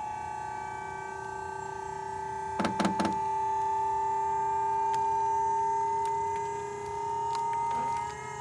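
The Wood-Mizer sawmill's hydraulic system running with a steady whine while the hydraulic arms move the cedar log on the bed. Three or four quick knocks come about two and a half to three seconds in.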